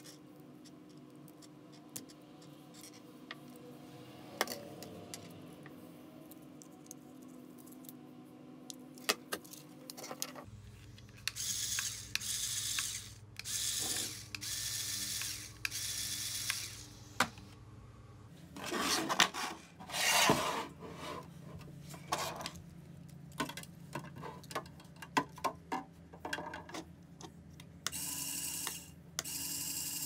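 Small Lego electric motors and plastic gears whirring in repeated bursts of a second or two, switched on and off by the remote, with clicks of plastic parts between them. The first third holds only a low steady hum and scattered clicks.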